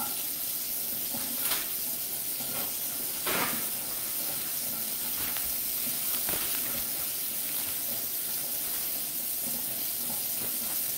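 Steady hiss of food sizzling in a frying pan, with a few faint brushes of a paper towel wiping a granite countertop.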